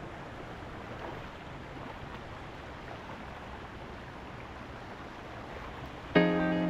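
Shallow stream running over rocks, a steady rush of water. About six seconds in, louder strummed acoustic guitar music comes in over it.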